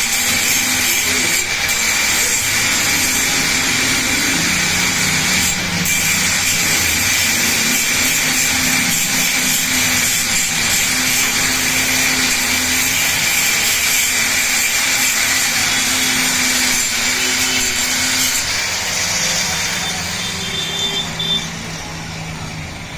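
Angle grinder running steadily against steel, grinding down a weld on a motorcycle gear lever, a constant high whine over a harsh hiss. It eases off about 18 seconds in and dies down near the end.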